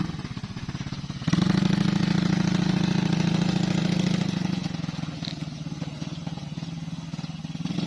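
ATV engine running steadily. It gets noticeably louder about a second in and eases off again toward the end.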